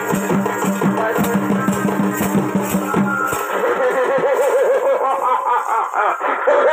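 Live Chhau dance music: rapid, dense drumming over a steady low tone. About halfway through the drums drop out, leaving a wavering, ornamented high melody.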